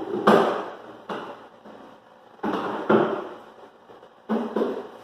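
Hollow wooden knocks and clunks from a wooden tool chest being handled, its parts and tools set down against the wood. Several sharp knocks, mostly in close pairs, each ringing briefly and dying away.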